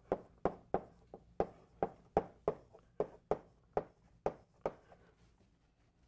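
Chalk tapping and scraping on a blackboard as words are written, a quick run of sharp clicks about three a second that stops about five seconds in.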